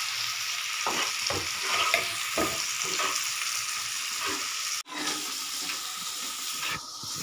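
Grated carrots cooking in ghee and milk in a frying pan, sizzling steadily while a spatula scrapes and stirs through them in irregular strokes. The sound cuts out for an instant about two-thirds of the way in.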